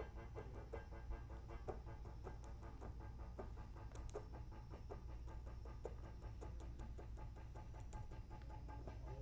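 Faint, irregular small clicks and scrapes of stone on river stone over a steady low hum. This is a rock being dragged slowly along a path of stones by a string wound in by a motor.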